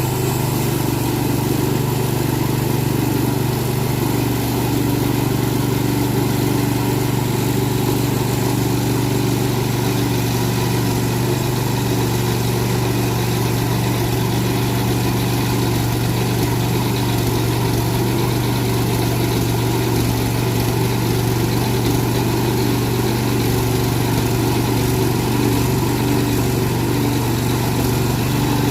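Engine of a Frontier portable sawmill running steadily at a constant speed, a loud even hum with no change in pitch.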